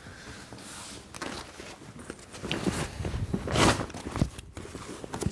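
Rummaging and handling sounds: clothing rustling with scattered clicks and knocks as a seated person reaches aside for a book. One louder rustle comes about two-thirds of the way through.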